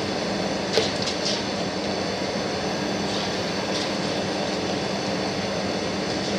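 Hot oil sizzling steadily as cornflour-and-egg coated chicken pieces are dropped in to deep-fry, with a few sharp crackles and spits, the sharpest about a second in.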